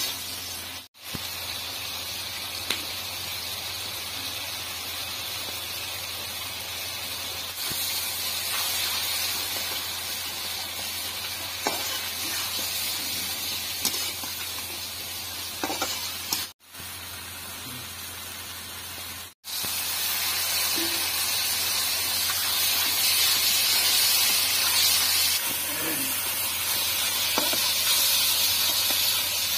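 Curry masala sizzling in hot oil in a black kadhai while a flat spatula stirs it, with occasional clicks and scrapes of the spatula against the pan. The sizzle cuts out briefly three times and is louder in the last third.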